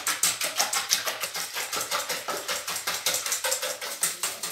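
Wire balloon whisk beating eggs in a stainless steel bowl: rapid, even clicking and scraping of the wires against the metal as the eggs are whipped to a foam.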